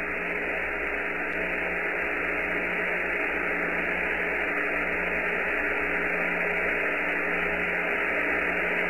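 Steady hiss of the Apollo 14 lunar-surface-to-Earth radio link with nobody transmitting, its sound cut off above the voice range, with faint steady tones underneath.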